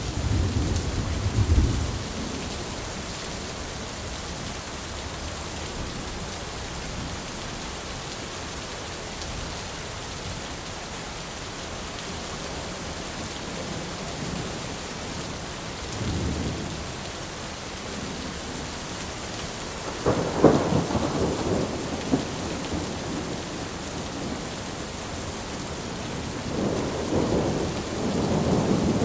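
Thunderstorm: steady rain hissing, with rolls of thunder over it. A low rumble at the start, a short one about halfway, a loud cracking peal about two-thirds of the way in, and another roll building near the end.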